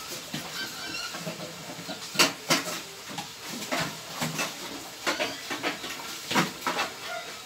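Screwdriver work on a Sharp microwave oven's sheet-metal cabinet: several sharp knocks and clatters of the tool and hands against the metal case, loudest about two seconds in and again near the end.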